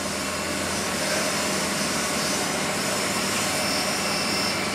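A steady mechanical drone with a low hum running throughout, from a machine running in the workshop.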